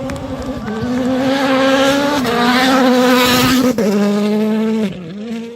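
Rally car's turbocharged four-cylinder engine at full throttle as the car passes, the pitch climbing with two quick upshifts, then lifting off just before the end.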